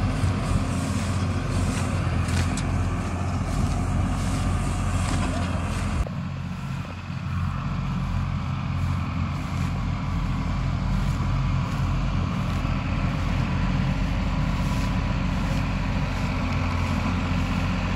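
Tractor diesel engines running steadily under load as a John Deere tractor tows a tractor and its trolley, stuck in a wet field, out on a tow chain. The level dips slightly about six seconds in.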